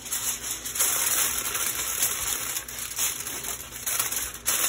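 A sheet of aluminium foil crinkling and crackling as hands handle it and press it down over a foil parcel, a dense run of small crackles with no break.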